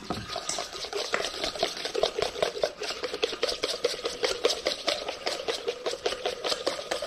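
Small wire whisk beating a miso-mustard dressing in a stainless steel mixing bowl, with rapid, even strokes of the wires scraping against the metal.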